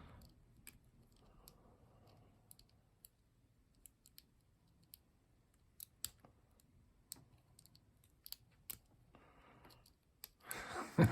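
A lock pick working the pins of a small lock under tension: faint, irregular clicks and ticks, some sharper than others, spaced unevenly as the pins are felt and set.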